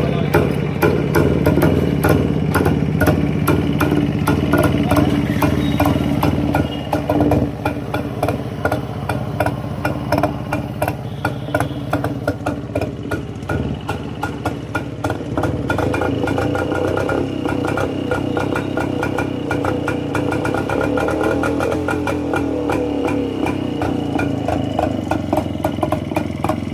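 Vintage Rajdoot motorcycle's two-stroke engine running just after a kick start, mostly idling with a rapid even beat. The revs shift a few times along the way.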